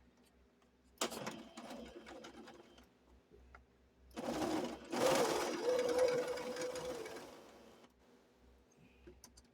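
Home sewing machine stitching in bursts: a short run about a second in, then a longer, louder run from about four seconds in that lasts about three seconds and tapers off. It is starting the stitching on a scrap pillowcase.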